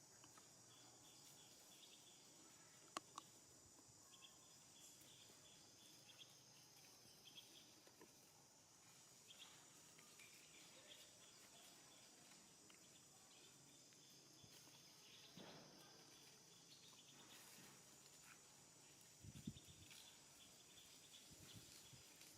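Faint, steady high-pitched buzzing of an insect chorus, with scattered short chirps, a sharp click about three seconds in and a few soft low bumps near the end.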